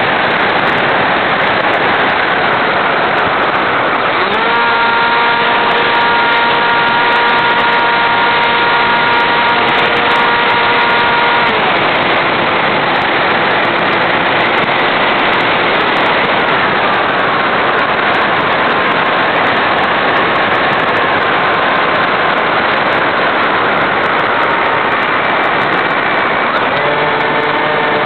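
Electric RC airplane's motor and propeller, heard from a camera on board the plane, under a constant rush of airflow. The motor's whine holds a steady pitch for several seconds about four seconds in, falls away about halfway through, and comes back near the end as the throttle changes.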